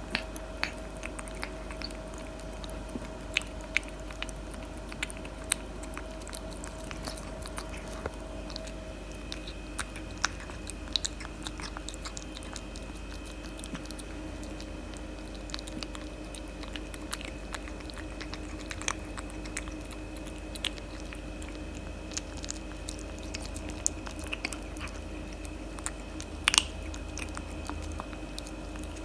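Tabby cat chewing and crunching dry kibble mixed with wet chicken-and-tuna cat food, with irregular sharp crunches and clicks over a faint steady background hum.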